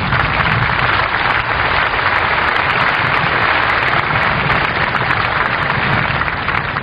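Large open-air crowd applauding, a dense, steady clapping that holds at one level throughout.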